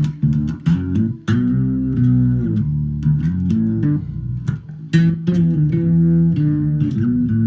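Harley Benton B550 five-string fretless electric bass with round-wound strings, played through an amp with compression, octave and chorus effects. Runs of plucked notes slide smoothly from one pitch to the next.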